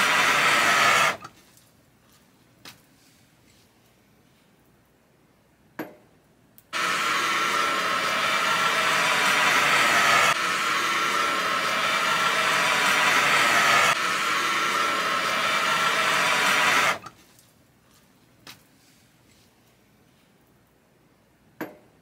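Handheld gas torch burner hissing as its flame is blasted into wood in a clay shichirin grill to light it. There is a short burst at the start, then a few faint clicks, then a long steady blast of about ten seconds that cuts off abruptly.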